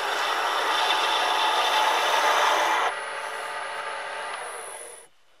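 A turning tool cutting a spinning walnut and zebrano blank on a wood lathe, a coarse rasping scrape. The zebrano is cutting badly and is hard on the tool. The cut eases about three seconds in and stops about five seconds in.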